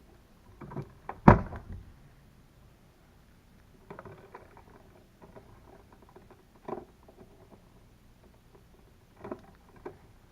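Electrical wires being stripped of their insulation with a hand tool: a sharp snap about a second in, then scattered clicks and scrapes as the insulation is cut and pulled off.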